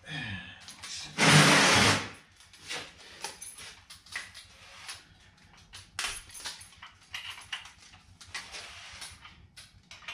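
Hand tools clicking and scraping on a bare 6.0 LS V8 block while the crankshaft is turned to find top dead center. About a second in comes one loud, harsh burst lasting under a second, followed by scattered sharp clicks and short scrapes.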